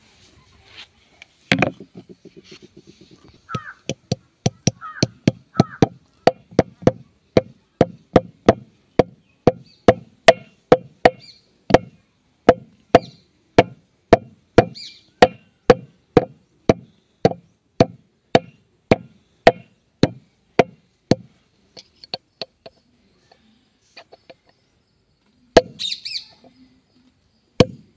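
Hammer blows on a steel drift set in the bore of a John Deere tractor's front wheel hub, knocking out the old bearing parts. Sharp metal-on-metal strikes come in a steady run of somewhat under two a second, stop about three-quarters of the way through, and a few more strikes follow near the end.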